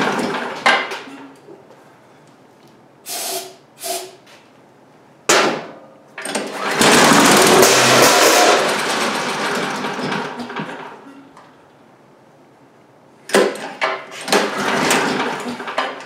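Cub Cadet leaf blower's Honda-clone single-cylinder engine being pull-started on half choke. After a few short pulls it catches and runs for about five seconds on starting fluid alone, then dies and fades out as the blower winds down. A quick series of further recoil pulls follows near the end.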